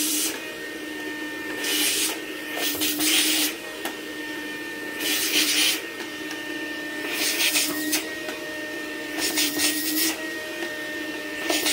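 Rainbow vacuum cleaner running steadily, with a loud hissing rush of suction every one to two seconds as its hose draws leftover water and air out of the AquaMate shampooer's piping.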